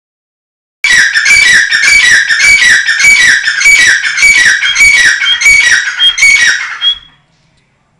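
Grey francolin (teetar) calling loudly: a ringing phrase repeated about twice a second for some six seconds, each phrase falling in pitch. It ends with a short thin high note.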